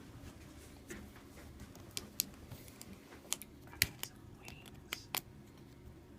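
Small sharp clicks and taps of a screwdriver and tiny screws against a smartphone's plastic and metal frame during disassembly, about eight irregular clicks over a few seconds.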